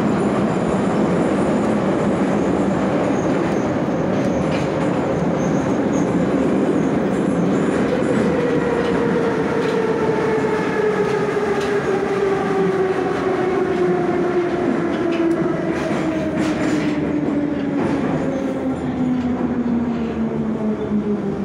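81-717 metro car running through the tunnel, heard from inside the saloon: steady wheel and running noise with some rail clatter. From about eight seconds in a whine falls steadily in pitch as the train slows into a station.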